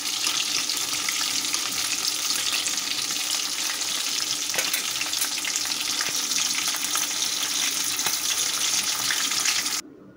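Chicken leg pieces shallow-frying in a little oil in a kadai, sizzling and crackling steadily. The sizzle stops abruptly near the end.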